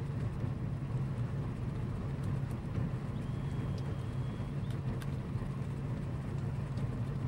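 Boat engine running steadily, a low even drone.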